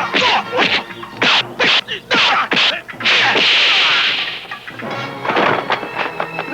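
Kung fu film fight sound effects: a rapid run of dubbed punch and kick impacts, then a longer crash lasting about a second, a few more hits after it, over film score music.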